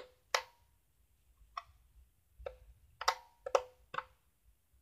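Sharp plastic clicks and knocks from a Bart Simpson novelty alarm clock being handled, about seven of them at irregular intervals, several with a brief ring.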